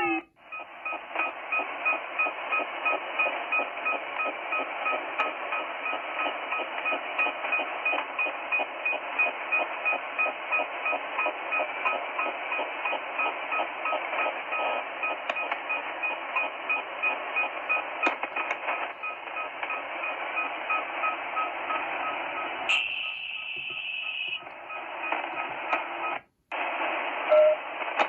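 Shortwave receiver in upper-sideband mode playing steady band hiss with a quick, regular train of faint beeps running through it. About three-quarters through, the sound changes as the radio is retuned, cuts out briefly, and a short tone sounds near the end.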